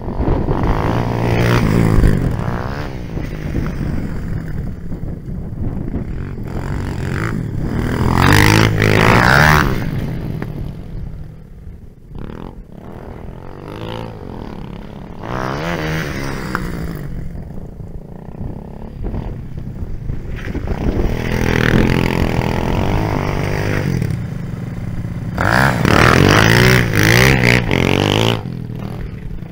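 250cc four-stroke dirt bike engines revving and passing, their pitch rising and falling with each burst of throttle. The engines are loudest about a third of the way in and again near the end.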